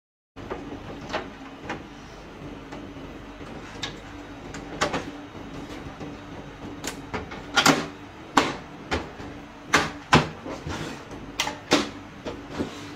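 Hard plastic clicks and knocks from an HP LaserJet printer's open front door and cartridge bay being handled and fitted back together. The clicks are sharp and irregular, loudest and closest together in the second half, over a steady low hum.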